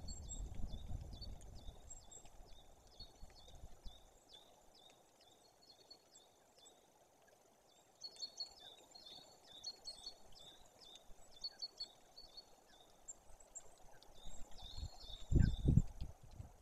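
Small birds calling: a steady run of short, high notes, getting busier with clusters of chirps from about eight seconds in. Low rumbles of wind buffeting the microphone at the start and again about fifteen seconds in.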